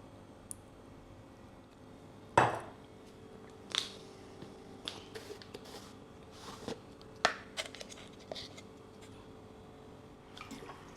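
Glassware and kitchen items being handled while a drink is mixed: a hard knock about two seconds in, then scattered lighter clinks and taps.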